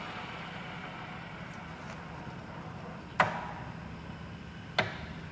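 Caber Mod. 58 all-geared pillar drill humming steadily while its speed-change levers are shifted, with two sharp knocks about a second and a half apart, a little after three seconds in and near the end, as the gears are moved to a new spindle speed.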